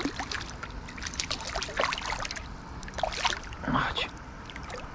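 Hooked perch thrashing at the water surface: irregular small splashes and drips as a hand reaches into the water to grab it.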